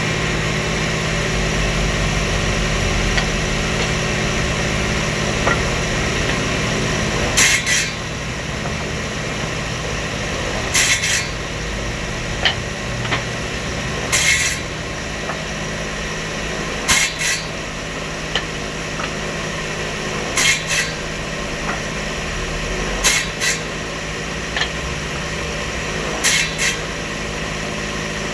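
Table saw running steadily, its blade then cutting wood in short repeated passes: a brief cutting rasp roughly every three seconds, starting about seven seconds in, as the joint is cut away pass by pass.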